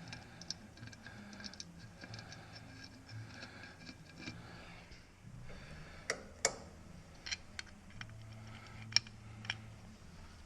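Scattered light clicks and taps of metal parts and hand tools being handled while a gasketed part is set in place and lined up, with a few sharper clicks about six seconds in and again about nine seconds in.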